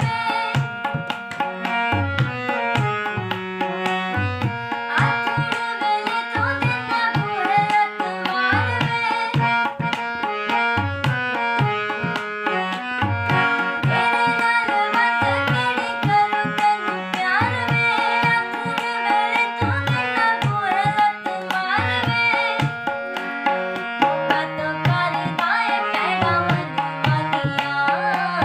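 A girl singing a Punjabi song, with harmonium chords held under the voice and a steady repeating drum beat.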